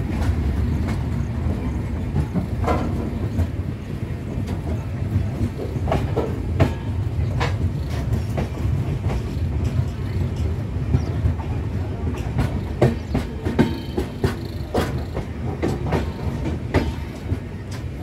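Express train coaches rolling along a station platform, heard from the open doorway: a steady low rumble with irregular sharp clicks and knocks from the wheels on the track.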